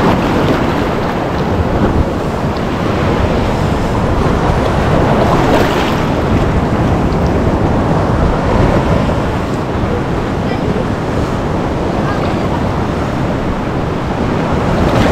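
Ocean surf: waves breaking and washing around close to the microphone, a steady loud rush of water noise, with wind buffeting the microphone.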